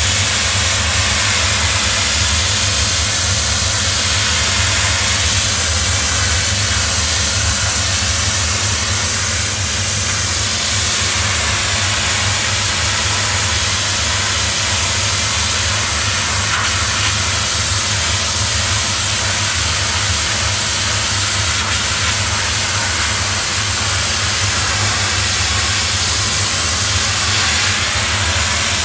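Doff superheated steam cleaning lance spraying a continuous jet of hot water and steam onto a patio slab to strip black spots: a steady, loud hiss, with a low steady hum underneath.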